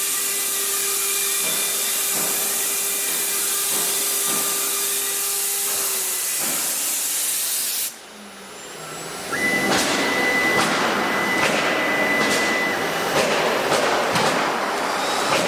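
6090 CNC router's spindle running and cutting wood: a steady hissing cut with a held tone. About eight seconds in it cuts off abruptly, and a second later louder cutting starts again with a high whine and repeated sharp ticks.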